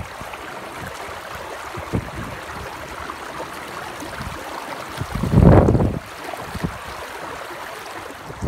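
Shallow creek water running steadily over rocks. About five seconds in, a gust of wind rumbles on the microphone for about a second.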